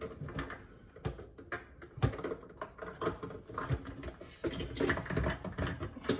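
Plastic parts of a KitchenAid dishwasher's lower wash assembly clicking, knocking and rattling as they are handled and lifted out, with a couple of sharper knocks about two seconds in and near the five-second mark.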